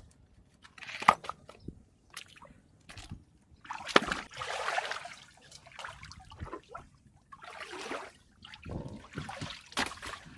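Hands groping through the shallow water of a drained tide pool: irregular sloshing and splashing, with a few sharp crunches and clicks.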